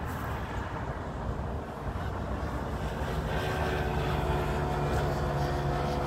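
Wind buffeting the microphone in a low rumble, with a distant engine's steady hum coming in about halfway through and slowly growing louder.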